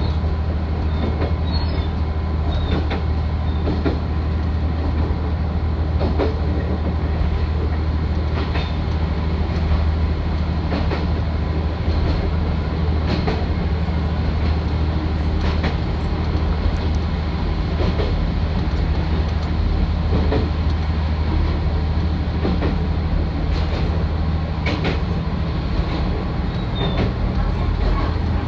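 Isumi 350 diesel railcar under way, heard from on board: a steady low diesel engine drone with wheel-on-rail rumble, and the wheels knocking over rail joints at irregular intervals.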